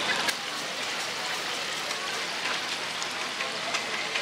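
Hot oil sizzling steadily as battered chicken fries in a deep fryer, with a few light clicks.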